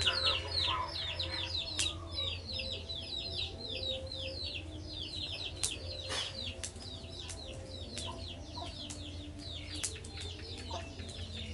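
Chicks peeping in a quick, steady run of short, high, falling peeps, several a second, with a few sharp clicks and a low steady hum underneath.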